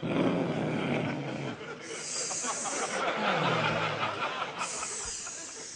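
Two men imitating dogs with their voices: a low growl-like sound, then two long, breathy hissing sounds about a second each, with a short falling voiced sound between them.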